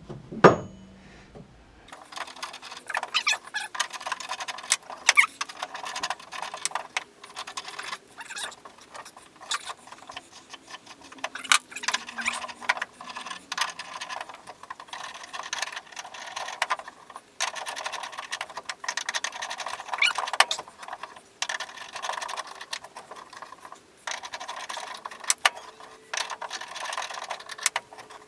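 A threading die being worked by hand over a hinge bolt thread built up with weld and oiled, recutting the thread: a long run of irregular scraping and clicking metal-on-metal strokes with short pauses. There is one sharp click just after the start.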